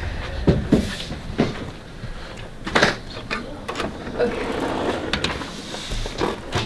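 A metal filing-cabinet drawer full of index cards pulled open, sliding out on its metal runners in a noisy stretch about four seconds in. Before it come several sharp knocks.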